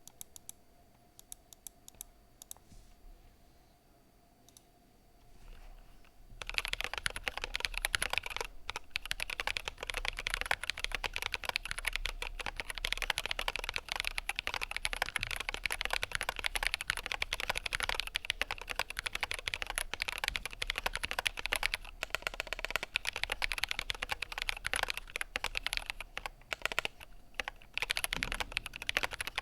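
GMMK Pro mechanical keyboard with Durock Gold V2 stabilizers being typed on. A few separate key presses come in the first six seconds, then steady fast typing follows.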